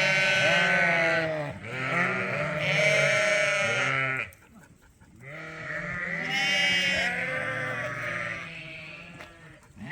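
A group of ewes bleating, many calls overlapping one another, with a brief lull a little before halfway.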